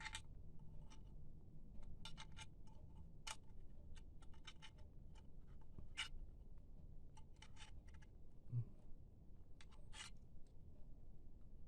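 Irregular light clicks and taps of a laptop drive and its metal mounting bracket being handled and fitted into the drive bay, with one soft low thump about eight and a half seconds in.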